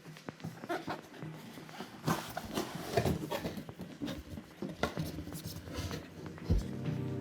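Irregular taps, clicks and rustles of packaging and parts being handled during an unboxing.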